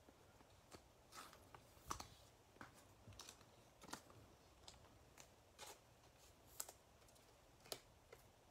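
Faint, irregular clicks and taps of trading cards being handled, sorted and set down on a table, the sharpest about 2, 4, 6.5 and 7.5 seconds in.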